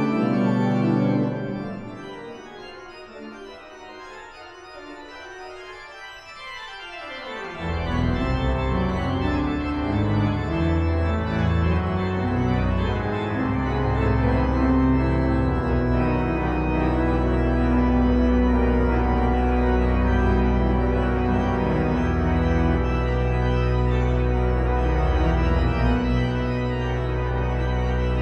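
Pipe organ playing a toccata. About a second in the bass drops out and it plays a quieter, lighter passage. A fast falling run then leads back into full organ with deep pedal bass about eight seconds in.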